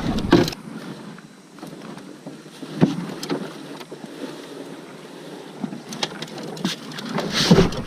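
Knocks and bumps on a small fishing boat's hull as someone moves about in it, over a steady hiss of wind; the loudest knock is about three seconds in, with a cluster of bumps near the end.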